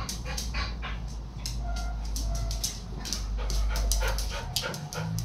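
A dog whining in several short, high whimpers, over a run of clicks and knocks.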